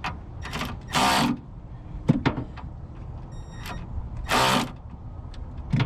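Bobcat 763 skid steer's diesel engine running with a steady low rumble. Two loud half-second surges come about a second in and past the four-second mark, with a few sharp clicks and a brief high whine in between, as the throttle lever, now holding its position with a new friction ring, is worked.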